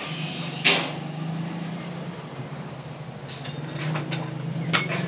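Light hammer strikes on steel in a blacksmith's workshop: about a handful of sharp metallic clinks in the second half, each ringing briefly. A steady low hum sits underneath throughout, and a short hiss comes about a second in.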